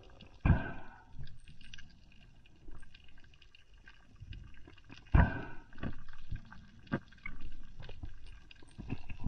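Muffled water sound picked up through an underwater camera housing: two loud rushing bursts, about half a second in and again about five seconds in, with faint scattered clicks between them.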